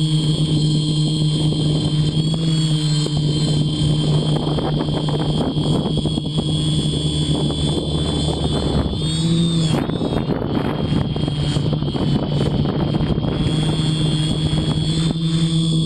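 3DR-B quadcopter's electric motors and propellers whirring steadily in flight, heard from the GoPro on board, with a rush of wind over it. The pitch of the hum dips and jumps back up briefly about ten seconds in.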